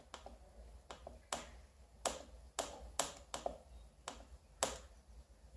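About ten sharp clicks at uneven spacing: a finger tapping the touch sensor of a homemade touch-lamp circuit, switching its LED panel on and off.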